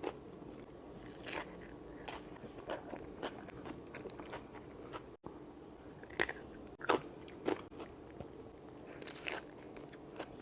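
Close-miked eating: several crunchy bites with chewing between them.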